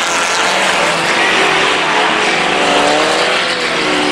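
Several Pro 4 race trucks' engines running hard on a dirt oval, their overlapping notes rising and falling in pitch as they race around the track.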